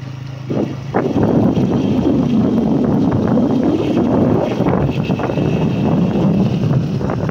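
Honda motorcycle engine running on the move. From about a second in, heavy wind buffeting on the microphone covers most of it.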